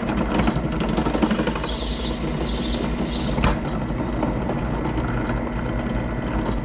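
Benchtop drill press running, its electric motor humming steadily as the bit is fed down into a PVC pipe cap. A higher hiss comes in about two seconds in and ends with a sharp click about three and a half seconds in.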